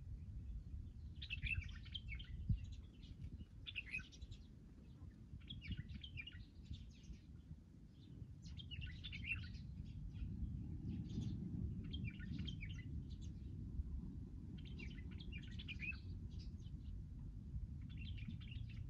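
Small birds chirping and twittering in short bursts every second or two, over a low steady rumble that grows heavier about halfway through.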